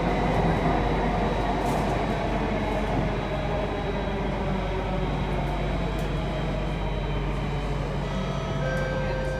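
Alstom Metropolis C830 metro train running, heard from inside the car: a steady rumble of the wheels on the track with a constant high whine. Near the end a set of new steady tones from the traction equipment sets in.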